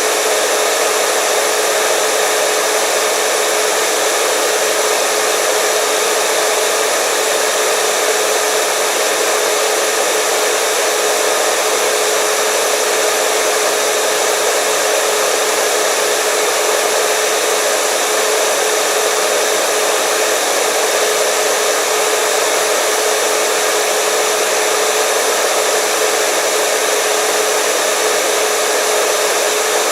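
Hair dryer running steadily: an even, loud rushing of air with a constant motor hum.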